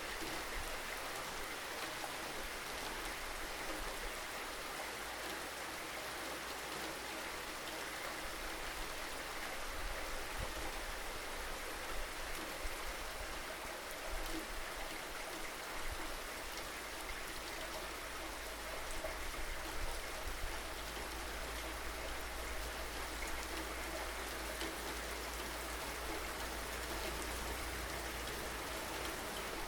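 Steady rainfall, an even hiss with scattered drops pattering, over a low rumble that grows stronger in the second half.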